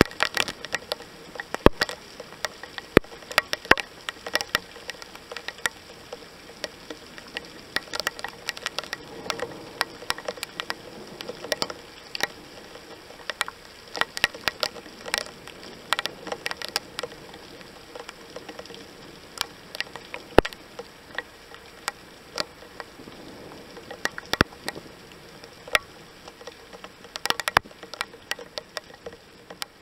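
Heavy rain: a steady hiss of rainfall with many irregular, sharp taps of drops striking close by.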